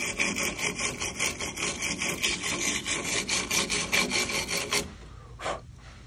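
Hand wire brush scrubbing carbon off a two-stroke trimmer muffler and its clogged exhaust screen, quick rasping strokes several times a second, stopping about five seconds in.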